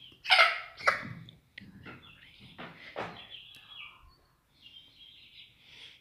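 Young chickens calling, with two loud, sharp squawks about half a second and a second in, then softer repeated chirps.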